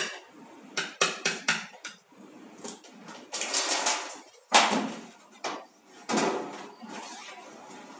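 Metal hand tools clinking and clattering at a transfer case drain plug while it is being undone for an oil change. There is a quick run of sharp clinks in the first second and a half, then three longer clattering rattles.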